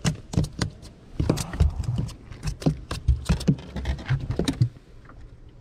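Quick irregular knocks and taps with low thumps, several a second, from handling a small crappie flopping on a fishing boat's deck; they die down near the end.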